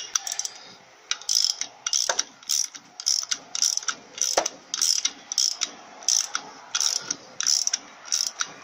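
Ratchet wrench clicking in short strokes, about two a second, as it tightens the differential pinion flange nut against its collapsible spacer.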